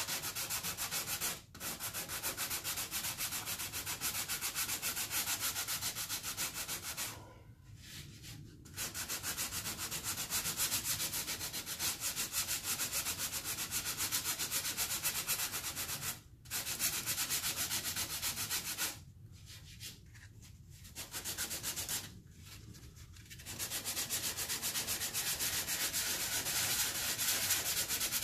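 Hand sanding polyester glazing putty (USC Pro-Glaze) on a VW Beetle fender with 120-grit sandpaper on a stiff sponge block: a steady, fast scratchy hiss of back-and-forth strokes, stopping briefly about five times.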